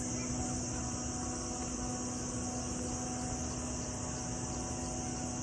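Steady high-pitched insect buzzing with a constant low hum beneath it.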